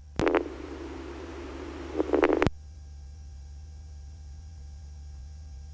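A radio transmission keyed open with a click, giving about two seconds of static hiss that swells into a short louder garbled burst and is cut off by a second click. After it only the helicopter's steady low cabin drone, heard through the intercom, remains.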